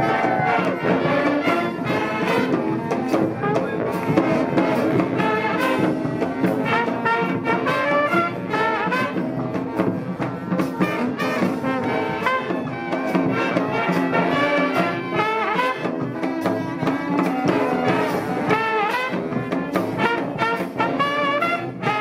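Street brass band playing a lively tune: trumpets, trombones and sousaphone over a steady beat of bass drum, cymbal and snare.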